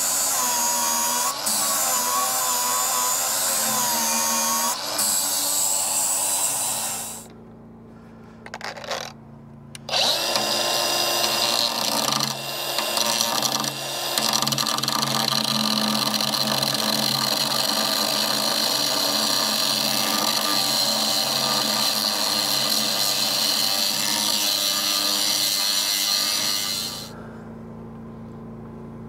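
Cordless angle grinder grinding the steel track frame of a compact track loader, beveling the edges of a cut-out, its whine wavering as the disc loads against the metal. The grinder stops for a few seconds about seven seconds in, restarts, runs steadily, then stops near the end, leaving a lower steady hum.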